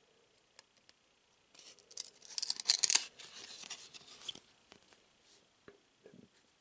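Trading-card pack wrapper crinkling and tearing in the hands: a burst of crackling starting about a second and a half in, loudest around the third second, dying away to a few light clicks.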